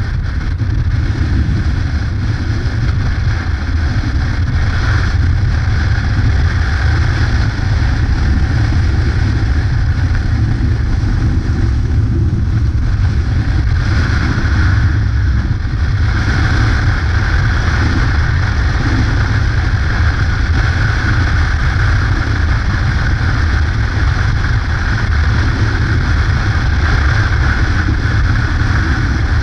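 Yamaha Ténéré adventure motorcycle riding at a steady cruise, its engine running under heavy wind rumble on the camera microphone.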